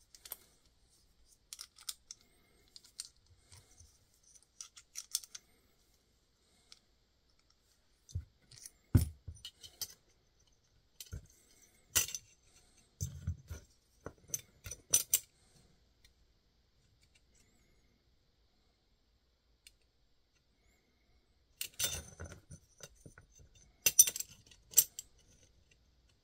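Small metal channel pieces handled on a work mat: scattered light clicks and taps as they are picked up, set down and fitted against one another, with clusters of sharper clinks about a third of the way in, around the middle and near the end.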